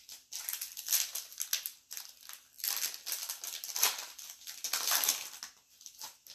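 Plastic foil wrapper of a trading-card pack crinkling as it is torn open and handled, in a string of uneven crackly bursts.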